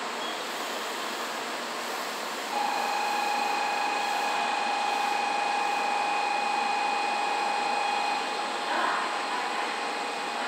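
N700 series shinkansen pulling out of a station and passing close by, a steady rushing run of wheel and body noise. About two and a half seconds in, a steady whine at one pitch comes in suddenly and holds.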